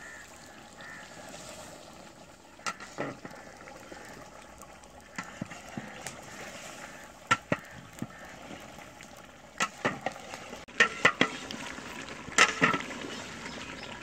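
Long-handled ladle stirring chicken in a large aluminium pot (degcha), scraping and knocking on the pot's sides over a low frying sizzle, with the knocks coming more often in the second half. The chicken is being browned (bhuna) in ghee.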